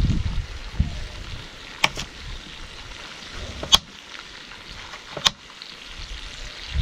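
Kitchen knife cutting through carrots and striking a wooden cutting board: a quick double knock about two seconds in, then single knocks near four seconds and just after five, over a faint steady hiss.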